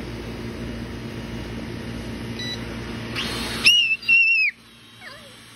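Small toy quadcopter drone's propellers buzzing steadily. About three and a half seconds in, the buzz stops as a burst of hiss and a loud, high-pitched shriek in two parts cut in; the shriek drops in pitch at the end.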